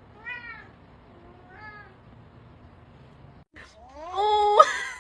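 Cat meowing: two short, falling meows, then a louder, longer meow that rises in pitch and holds near the end.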